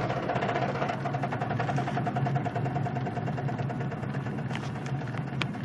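A car running at low speed with a fast, even knocking over the engine sound, the knock it makes when driven slowly. A few sharp clicks come near the end.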